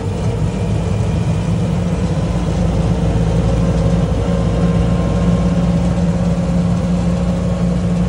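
Land Rover Series IIA engine and drivetrain running steadily under load in third gear, heard from inside the bare-metal cab. The drone grows a little louder about four seconds in.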